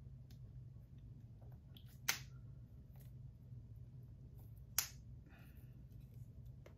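Scissors snipping at the plastic shrink-wrap on a Blu-ray case: two sharp snips about two and a half seconds apart, the second followed by faint crinkling of the wrap.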